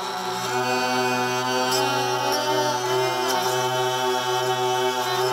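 Lira (Ukrainian hurdy-gurdy) played: the wheel bows the strings into a steady drone while the keys step a melody above it. It starts abruptly.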